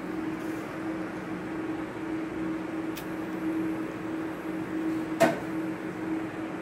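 Steady hum of a running electric fan motor, with a faint click about three seconds in and a sharper knock a little past five seconds.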